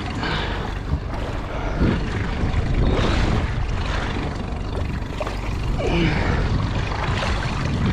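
Wind buffeting the microphone over a steady low rumble and sea noise on a small boat.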